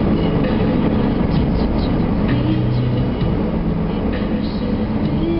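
Car driving at road speed, heard from inside the cabin: steady engine and tyre noise, with light rattles.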